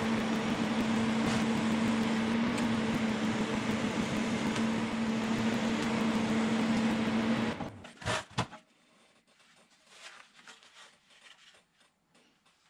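A motor-driven machine running with a steady hum under a loud hiss, cutting off about seven and a half seconds in, followed by a few sharp clicks.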